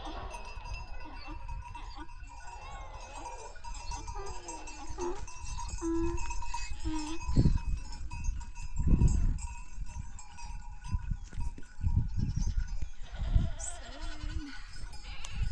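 Goats bleating in a herd, short wavering calls, with several loud low bumps partway through.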